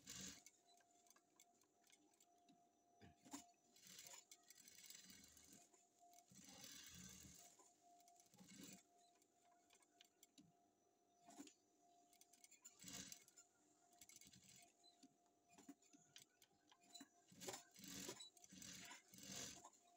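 Near silence: faint, irregular clicks and soft rustles from fabric being handled and turned on a sewing machine bed, over a faint steady hum.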